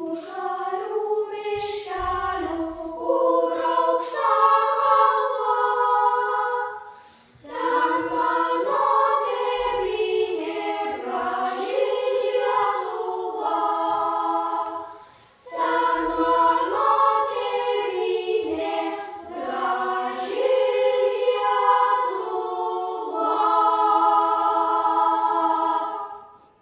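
Ensemble of young boys with unbroken treble voices singing a Lithuanian folk song, in three long phrases with a short breath-pause between them, the last phrase ending just before the end.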